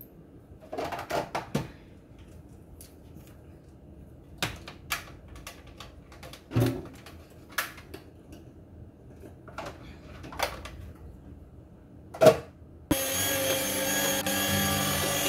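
Kitchen utensils and bowls clinking and knocking now and then, then about thirteen seconds in an electric hand mixer switches on suddenly and runs steadily, beating butter and sugar together.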